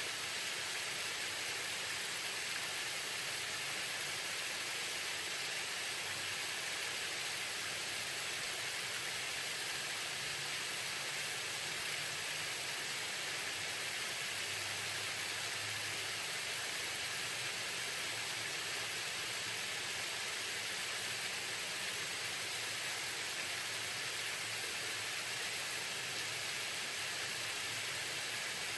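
Waterfall: a steady rush of falling water, even and unbroken, strongest in the high hiss.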